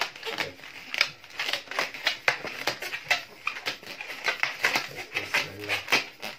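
Latex twisting balloons squeaking and creaking as they are twisted and rubbed together by hand: many short, irregular rubbery squeaks, several a second.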